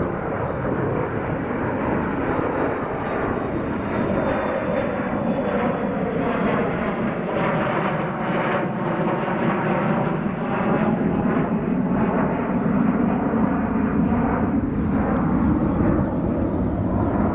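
Jet noise from an Embraer E-170 airliner's twin General Electric CF34-8E turbofans as the aircraft passes, a steady roar with a slow swishing sweep in its tone, growing a little louder toward the end.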